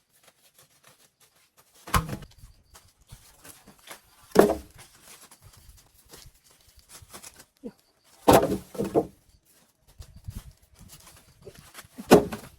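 Four separate knocks or thuds a few seconds apart, the third a short cluster of hits, with faint small clicks and rustles between them.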